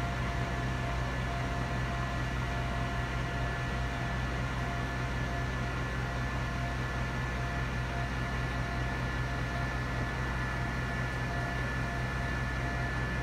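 Crane machinery running steadily during night work: a constant low hum with several steady high whining tones over it.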